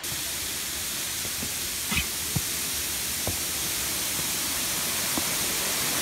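Waterfall and stream water rushing as a steady hiss, slowly growing louder, with a few faint knocks.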